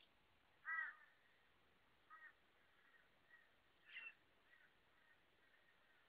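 Torresian crows calling: a series of short, harsh caws, the loudest about a second in, others about two and four seconds in, with fainter calls between.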